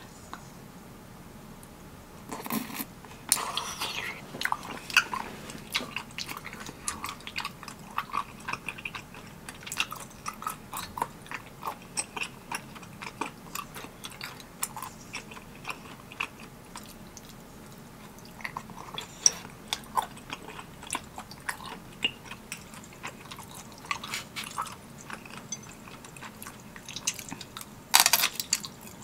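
Close-miked chewing and biting of spicy tteokbokki: a steady run of short wet mouth clicks and smacks, with louder bites about two to four seconds in and again near the end.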